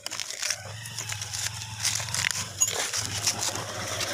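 Handling noise close to the microphone: irregular small clicks, clinks and rustles from hands, over a low steady hum.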